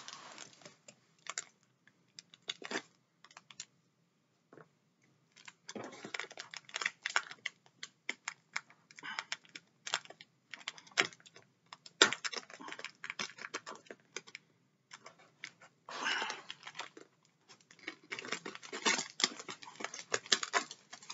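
Taped cardboard box being opened by hand: packing tape cut and pulled away and the cardboard flaps scraped and tapped. Irregular clicks and scrapes come in bunches, with short pauses between them.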